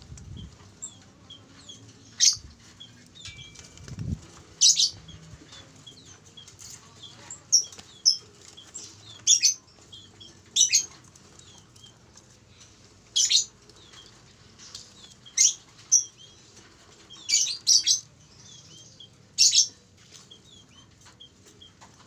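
Caged birds making short, sharp high-pitched sounds every second or two, with fainter little chirps between them.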